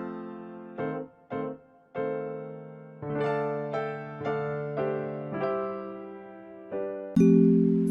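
Background music: a piano or electric piano playing a simple, gentle tune in separate notes that die away. About seven seconds in it gives way to a louder passage with bright, high chiming notes.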